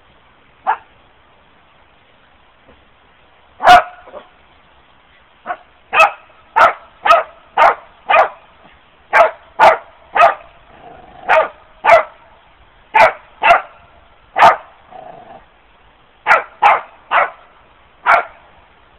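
A dog barking: a single bark, then from about four seconds in a long run of short sharp barks, about two a second, in bunches with brief pauses.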